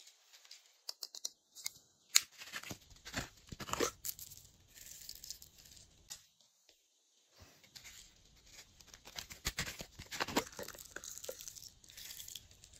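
Glossy slime being stretched, pressed and kneaded by hand, giving irregular sticky crackles, clicks and tearing sounds, with a short lull a little past halfway.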